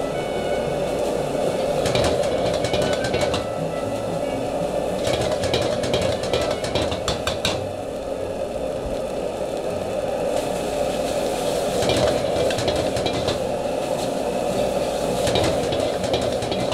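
Gas wok burner running steadily under a metal spatula scraping and clanking against the wok while rice is stir-fried, the clanks coming irregularly in short runs.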